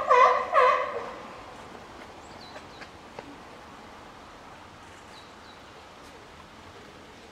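Two loud, rapid animal calls within the first second, then a faint outdoor background with a few thin, high bird chirps.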